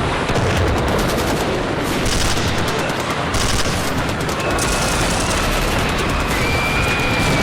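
Sustained machine-gun fire, rapid shots in an unbroken stream, with a high wavering wail held over the last few seconds.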